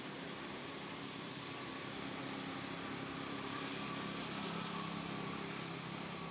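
A steady mechanical hum, engine-like, with a constant low drone and a fainter higher tone that do not change.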